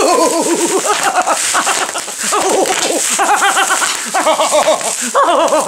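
A woman's voice in a rapid warbling, wavering cry, in several short phrases that jump between pitches, over the crinkling of plastic bubble wrap being squeezed and wrung.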